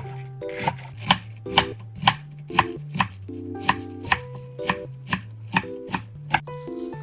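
Chef's knife slicing a cabbage wedge into thick strips and knocking on a wooden cutting board, a steady chop about twice a second. Light background music plays underneath.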